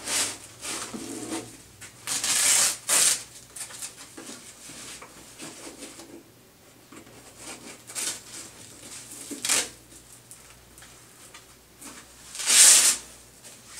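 Spinal backboard restraint straps being pulled and fastened across a patient's chest: several short, scratchy bursts of rustling noise, the loudest near the end.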